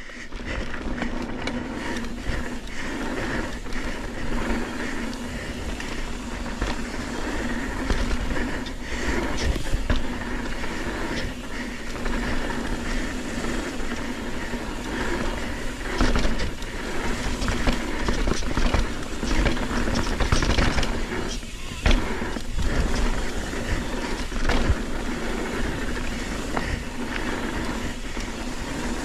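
Mountain bike riding noise: tyres rolling on a dirt trail, wind rumbling on the microphone and the bike rattling over bumps, with a steady hum underneath and scattered knocks.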